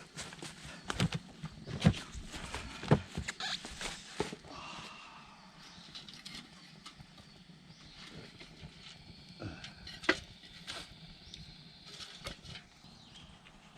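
Wood campfire burning: several loud cracks and knocks in the first four seconds, then sparser, quieter crackles and pops.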